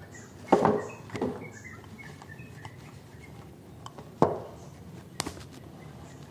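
Handling knocks and clicks from a plastic camera tripod and its packaging being unpacked: two sharp knocks, one about half a second in and one about four seconds in, with lighter clicks between.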